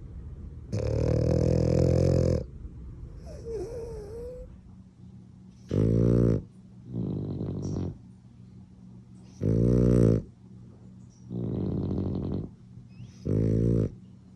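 French bulldog snoring: four loud, rasping snores a few seconds apart, with softer, longer snoring breaths between them.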